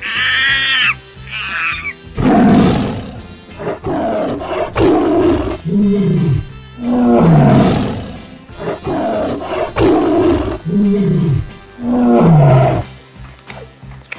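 Tiger calling with a series of loud, deep growls, several of them falling in pitch, over background music. A few high-pitched animal calls sound in the first two seconds.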